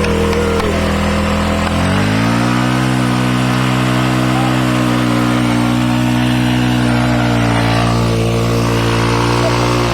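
Motorcycle engine held at steady revs, rising to a higher pitch about two seconds in and holding there, then dropping away near the end. The rear wheel is spinning in place on dirt, digging a pit in the ground.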